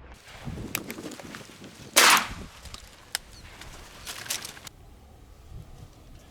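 A single shotgun shot about two seconds in, the loudest sound, with a brief tail after it. A few fainter sharp clicks or knocks come before and after it.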